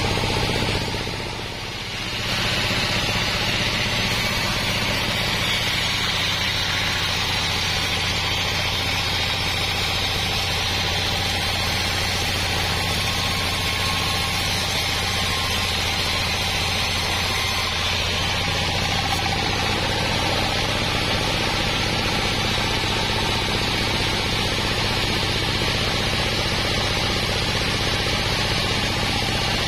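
Sawmill band saw driven by a diesel engine, running steadily as its blade cuts lengthwise through a wadang log, with a brief dip in level about a second and a half in.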